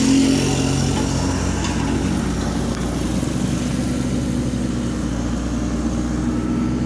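Excavator's diesel engine running steadily at a low, even pitch.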